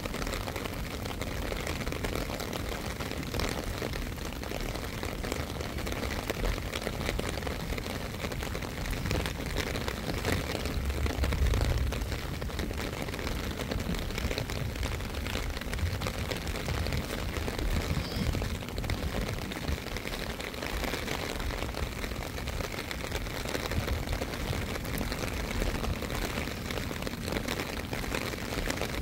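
Steady rain, with wind buffeting the microphone in uneven low gusts, the strongest about eleven seconds in.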